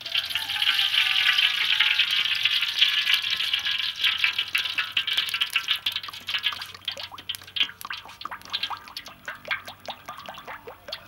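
Cooking oil pouring from a plastic bottle into a wok: a steady splashing stream at first, breaking up from about halfway into a quick string of short gurgles as the pour goes on.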